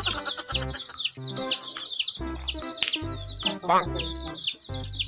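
Many chicks peeping in a quick, constant run of short high chirps, over background music with plodding bass notes.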